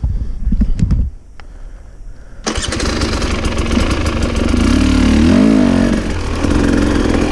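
Husqvarna TE 300i two-stroke dirt bike engine catching about two and a half seconds in, revved once up and back down, then running.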